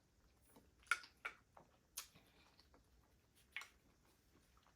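Quiet mouth sounds of a person chewing smoked meat: a few sharp, wet smacks and clicks spaced about a second apart, with near silence between.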